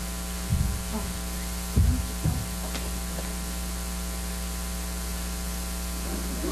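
Steady electrical mains hum, with a few low, dull thumps about half a second in and twice around two seconds in, the one near two seconds the loudest.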